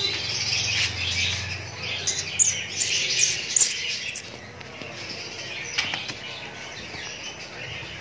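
Many small caged birds chirping, a dense high chatter with sharper single calls standing out, louder in the first half.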